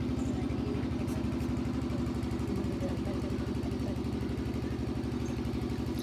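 An engine idling with a steady, even drone.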